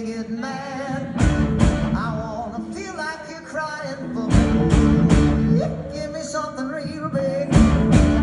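Live rock band playing a song: guitars, keys and drums under a sung lead vocal. The band gets louder about four seconds in and again near the end.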